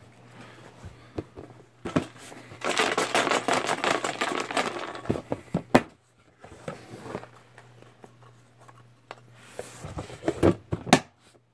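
Paper being rustled and shuffled by hand: a dense rustle lasting about two seconds a few seconds in, then scattered clicks and knocks of handling. A faint steady low hum lies underneath.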